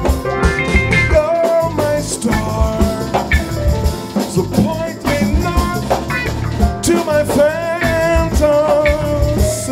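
Live band music: drum kit and keyboards playing a groove under a melody line of long held notes.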